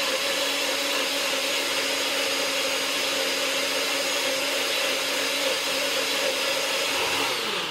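NutriBullet blender motor running steadily, blending fruit and water into a smoothie. Near the end its pitch falls and it fades as the motor winds down.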